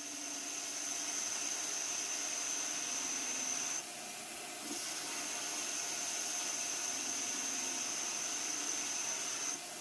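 Hercus PC200 CNC lathe turning an aluminium part with a parting-tool insert: a steady hiss with a high-pitched whine over it. The whine breaks off for about a second some four seconds in, then resumes until near the end.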